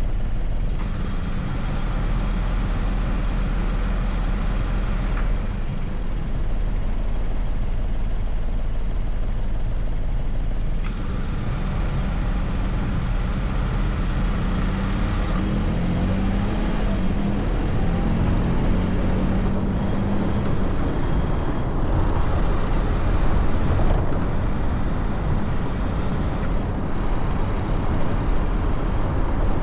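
Car driving in city traffic: a steady low engine and road rumble, with the engine's pitch rising and falling about halfway through and a few brief clicks.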